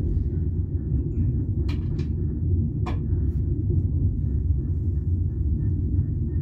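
Passenger train running along the track: a steady low rumble, with three short sharp clicks near the middle.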